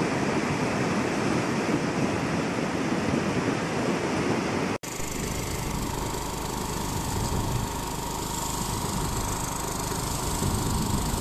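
Muddy floodwater rushing in a steady torrent. About five seconds in the sound cuts to another flash flood surging down an eroded ditch, a lower, heavier rush.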